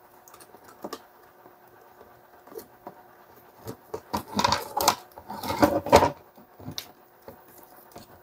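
The plastic housing of a Bosch PSB 550 RE corded drill is handled and worked apart by hand. A few light clicks are followed by a loud cluster of plastic clattering and knocking from about four to six seconds in.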